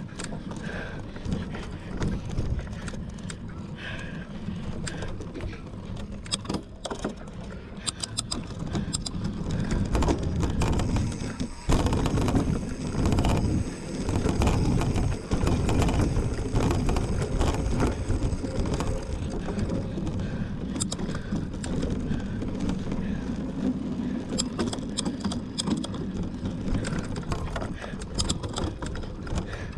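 Mountain bike ridden over rough ground: a steady low rumble with the chain and frame rattling and clicking, louder for a stretch from about ten to twenty seconds in.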